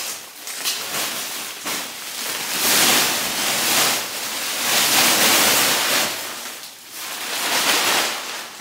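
Rustling, sliding noise of garments being dumped out of post-office mail bags, coming in several swells.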